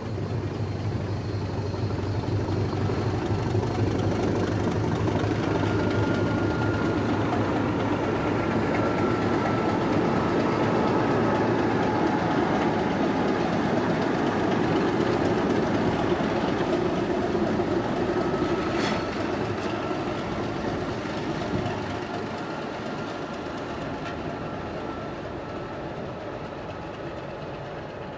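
Queensland Rail heritage diesel locomotives passing slowly at close range, their engines running with a low rumble along with the wheels on the rails. The sound builds over the first few seconds, holds, then fades as the locomotives move away. A faint thin high tone comes and goes.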